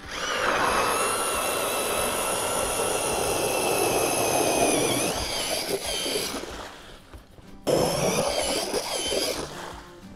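Battery-powered ice auger drilling through ice: an electric motor whine over the grind of the blades cutting ice, running about six seconds with the whine sagging under load near the end, stopping, then a second shorter run of about two seconds.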